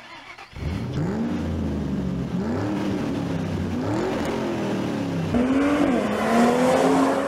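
Car engine accelerating hard up through the gears, its pitch climbing and dropping back at each shift, then holding a steady high note in the last second or so.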